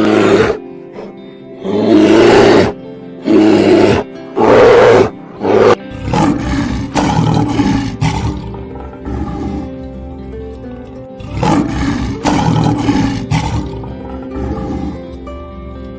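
A big cat roaring over steady background music: five loud roars in the first six seconds, then two longer bouts of roaring.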